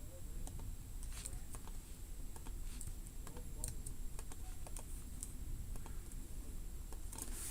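Scattered keystrokes and clicks on a computer keyboard and mouse, a few at a time with pauses, then a quicker run of keystrokes near the end, over a low steady hum.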